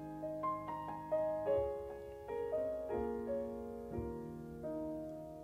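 Slow piano passage between sung lines of a ballad: single notes and chords struck about once a second, each left to ring and fade.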